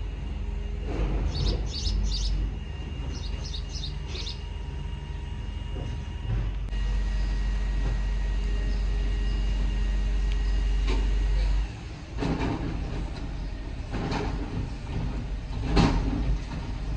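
Small birds chirping in short bursts during the first few seconds over a steady low rumble, with louder rushing swells of noise in the second half.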